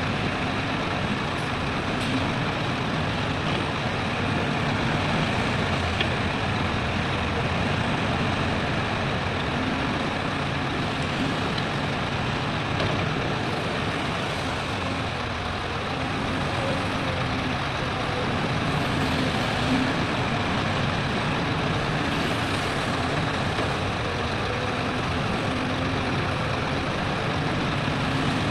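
Diesel engines of heavy earthmoving machinery and dump trucks running steadily, a dense continuous engine noise with a low hum.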